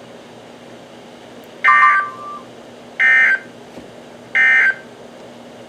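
NOAA Weather Radio's EAS end-of-message signal: three short, identical buzzy digital data bursts about a second apart, the SAME code that closes a warning broadcast. A faint steady hum runs underneath.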